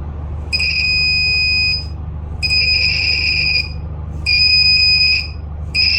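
Buzzer of a DIY laser tripwire alarm (LDR sensor switching a 5 V relay through a BC547 transistor) sounding in four bursts of about a second each, as a hand breaks the laser beam to the LDR and is taken away again. The tone is high, steady and slightly hoarse, and it cuts off each time the beam falls back on the sensor.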